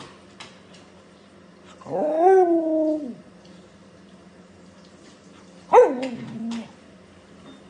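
A dog calls twice. The first call is long, about two seconds in, and rises, then slowly falls in pitch. The second is shorter, near the six-second mark, and starts high and slides down.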